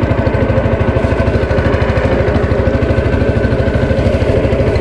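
Boat engine running steadily under way, with a rapid, even pulse.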